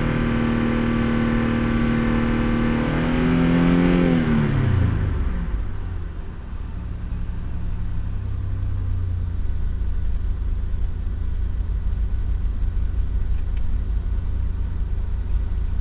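1996 Mazda MPV's 3.0 L V6 engine, heard from inside the cabin, held at about 5,100 RPM. About four seconds in the throttle is released and the revs fall quickly back to a steady idle.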